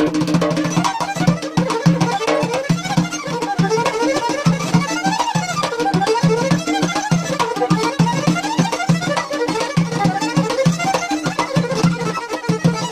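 Traditional folk trio playing live: a violin leads a wavering, sliding melody over a plucked rubob and a hand-beaten double-headed drum, which keep a steady rhythm.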